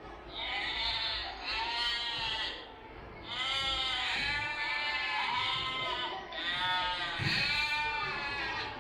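Livestock bleating: a series of about six long bleats, one after another, each rising and falling in pitch.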